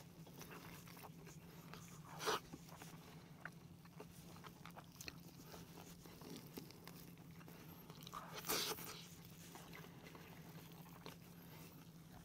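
Gloved hands tearing apart a whole fried chicken: scattered small crackles and two louder, brief tearing sounds, one about two seconds in and one about two-thirds of the way through, over a steady low hum.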